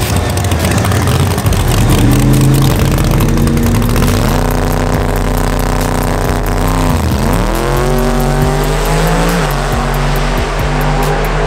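Drag-racing car engines on the starting line. The engine note climbs and is held high, dips sharply and comes straight back up about seven seconds in, then falls near the end as the cars leave the line.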